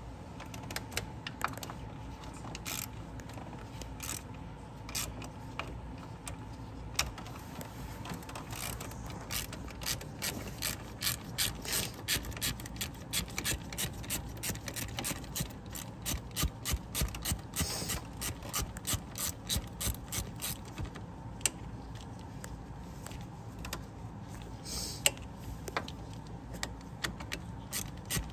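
Hand ratchet clicking in quick repeated back-and-forth strokes, loosening a 10 mm bolt that holds the radiator.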